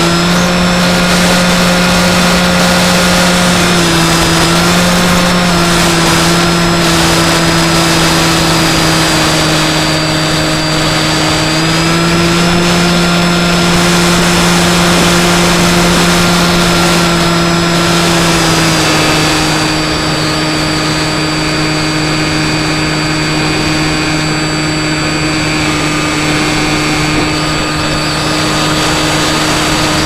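Skywalker X5 flying wing's electric motor and pusher propeller running at a steady hum, with wind rushing past the onboard camera. The pitch shifts slightly a few times with the throttle and settles a little lower about two-thirds of the way through.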